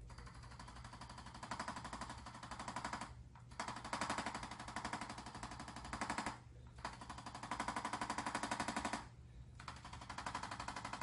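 A handheld electric percussion device rapidly tapping, a fast machine-gun-like clicking in runs of two to three seconds with short pauses between them, as it is worked over the body during a chiropractic adjustment.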